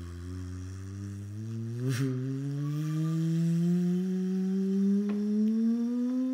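An adult's voice humming one long buzzing note that climbs steadily in pitch, an engine-like drone while a spoonful is brought to the baby, cut off suddenly at the end.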